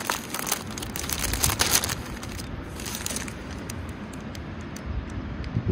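Crinkling and rustling of a foil ration-pack meal pouch and its paper sleeve being handled, busiest in the first two seconds with another burst about three seconds in, over a low wind rumble on the microphone.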